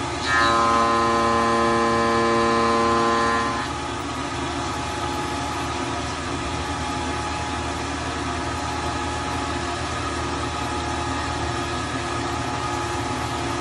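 Tormach 770MX CNC mill running, its 3/8-inch end mill milling a flat on a metal engine crankcase at a slow feed. The cut gives a loud, steady, pitched singing tone for about three seconds starting just after the start, then drops back to the machine's steady running hum.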